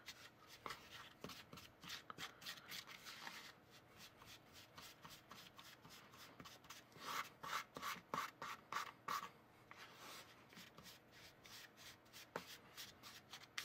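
Plastic spoon stirring and scraping crumbly pretzel dough in a small plastic bowl: faint, rapid scraping strokes, busiest early on and again a little past the middle.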